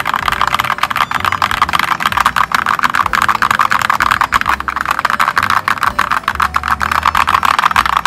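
Fast, continuous typing on a Royal Kludge RK Round wireless mechanical keyboard with round typewriter-style keycaps: a dense, even rattle of key clicks.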